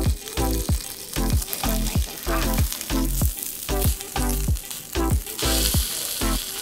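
Background music with a steady beat, about three beats a second, over chicken pieces sizzling in a frying pan; the sizzle grows louder near the end.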